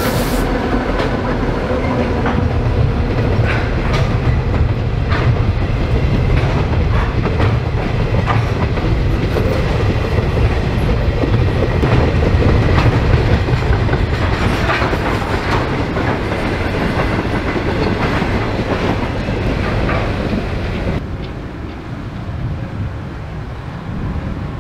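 Freight train rolling past, a steady heavy rumble with the wagons' wheels clicking over the rail joints. The sound dulls abruptly near the end.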